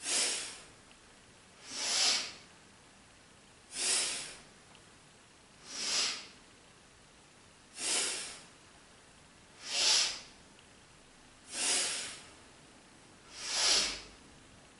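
A woman breathing hard and audibly in an even rhythm, a hissing breath about every two seconds, eight in all. She inhales as she rises and exhales as she drops into each fast standing front bend.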